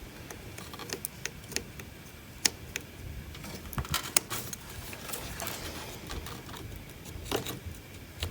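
Hand work with metal tools and parts: scattered clicks and knocks, with a stretch of scraping about halfway through.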